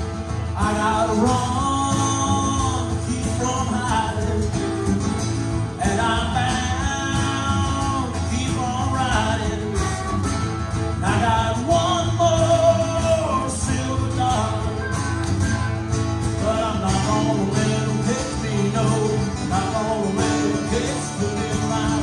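Country-style acoustic band music: acoustic guitars strumming, with a harmonica playing the lead melody in phrases over them.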